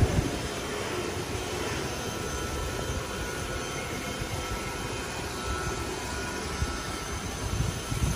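Steady mechanical drone of a fish farm's aeration equipment running beside the tanks, with occasional low rumbles of wind on the microphone.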